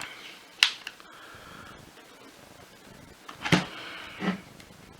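Sharp clicks and a clatter of hand tools being handled as a small Torx T10 screwdriver is picked up and set to work: one loud click just under a second in, then another clatter about three and a half seconds in.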